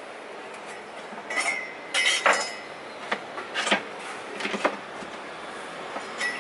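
Irregular clicks, knocks and clinks of tools and materials being handled during hand work on a boat frame. A few of them carry a brief high ring, and the loudest cluster comes about two seconds in.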